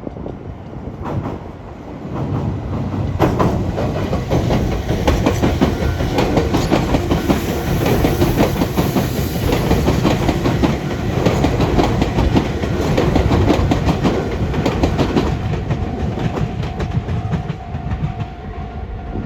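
Meitetsu electric train running over the junction's points and rail joints: a long series of rapid wheel clatters and knocks, thickest in the middle, with a faint squeal near the end.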